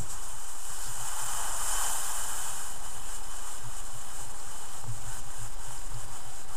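Steady hiss of a Brasslite II-D alcohol stove's flame burning denatured alcohol under a pot of water.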